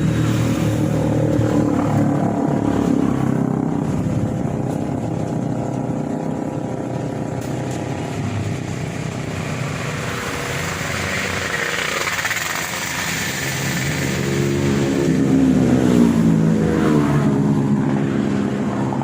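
An engine running steadily. About fifteen seconds in it gets louder and its pitch slides down.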